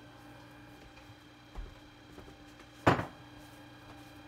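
A faint steady hum with a soft thump about one and a half seconds in and a single sharp knock near three seconds, the loudest sound.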